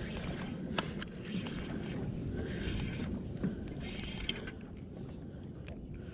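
Small fishing boat at sea: a steady wash of water and wind over the microphone, with a few sharp clicks or knocks.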